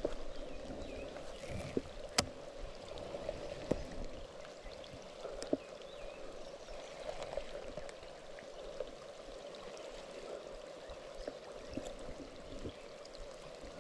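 A steady, gentle wash of water with scattered sharp taps and clicks, the loudest about two seconds in.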